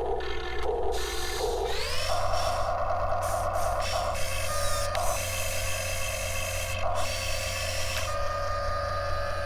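Top Race RC excavator digging: its small geared electric motors whir while its built-in engine sound effect plays. About two seconds in, the pitch rises smoothly and then holds steady.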